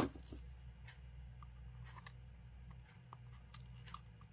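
Faint handling of paper on a card: light rustles and small scattered clicks as a glued die-cut paper branch is laid on and pressed down by hand, over a low steady hum. A single soft knock comes right at the start.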